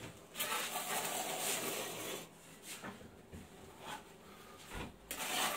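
Rubbing and scraping from hand work on the mineral wool ceiling insulation: a continuous scrape lasting about two seconds, then a few short scuffs.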